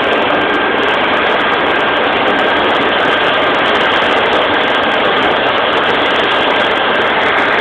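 Fire apparatus engines running steadily at the fireground, a continuous loud rumble with a faint, steady high tone over it.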